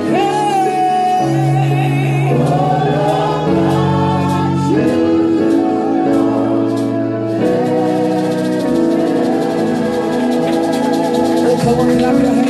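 Live gospel worship singing: lead vocalists on microphones with a group singing along, over held instrumental chords.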